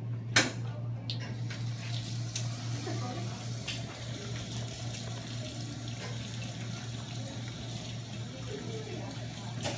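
Water running from a tap into a sink as hands are washed, a steady rush, with a sharp knock about half a second in.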